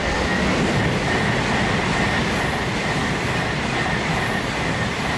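E7-series Shinkansen bullet train passing at speed: a loud, steady rush of wheel, rail and air noise with a faint high whine held over it.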